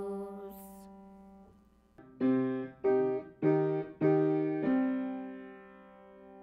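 Piano music: a held chord fades away, then about two seconds in a run of five struck chords, the last one left ringing.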